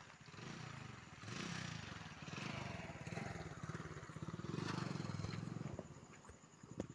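Swaraj tractor's diesel engine running, a fast even beat of firing pulses that grows louder and softer as the microphone moves around the machine.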